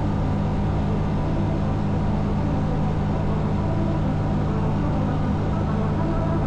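Steady in-flight drone of a single-engine experimental light aircraft's engine and propeller, heard from inside the cockpit, with a constant rush of wind noise.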